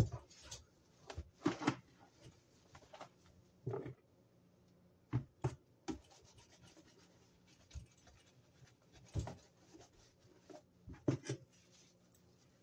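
Terry-cloth towel wiping a plastic toaster and a wet, soapy countertop: irregular rubbing and scuffing with scattered light bumps as the toaster and hand knock on the counter.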